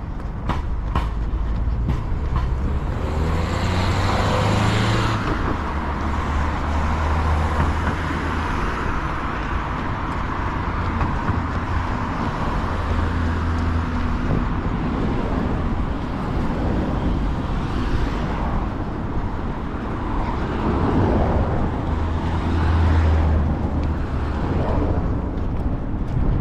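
City street traffic: motor vehicles running and passing with a steady low engine rumble. Two louder passes come a few seconds in and again a little past the middle.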